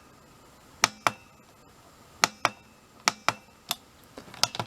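Buttons on a Vevor diesel heater's digital controller being pressed: sharp clicks, several in pairs, with a quicker run of presses near the end.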